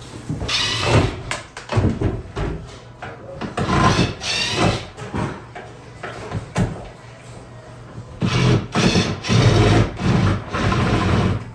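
Demolition noise of wood and tools: several bursts of scraping and knocking, with quieter knocks between them.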